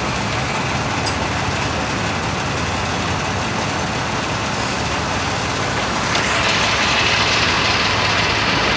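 Steady road traffic noise from passing motor vehicles, growing louder about six seconds in.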